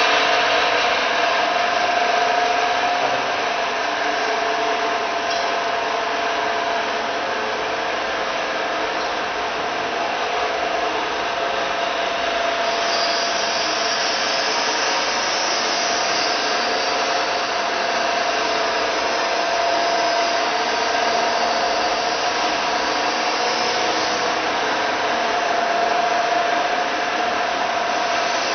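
Rib plough mixer running: its electric motor and gearbox give a steady hum with a steady whine and a hiss over it.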